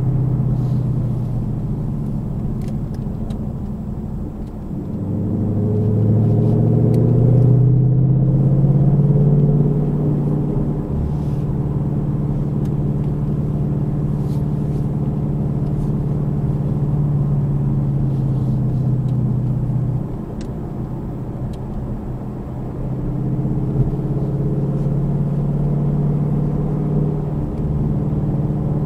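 Car engine and road noise heard from inside the car while driving at about 40 mph. The engine note rises and grows louder about five seconds in, eases off around twenty seconds, and climbs again a few seconds later.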